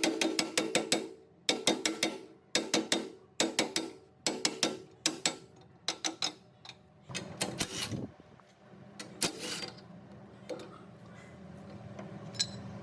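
Metallic clanking and rattling of old machine parts being worked, in repeated short clusters with a ringing tone, giving way about seven seconds in to a steady low hum with scattered ticks.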